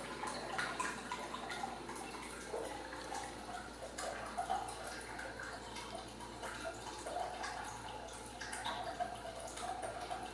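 Faint, irregular soft clicking and rustling, with a few faint short squeaks, from a litter of newborn Ragdoll kittens moving against each other on a blanket.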